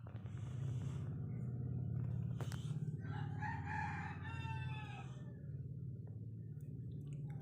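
A sleeping cat snoring with a low, steady rumble. A rooster crows once in the background about three seconds in, lasting roughly two seconds.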